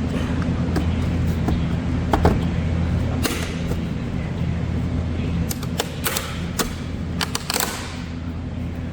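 Plastic trim clips clicking and snapping as a door trim piece is pried off, one snap about three seconds in and a quick run of sharp snaps in the second half. One of them is taken for a part breaking. A steady low hum runs underneath.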